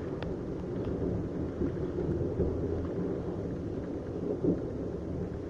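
Heavy thunderstorm rain, a steady dense rush with a few sharp ticks of drops striking the window glass.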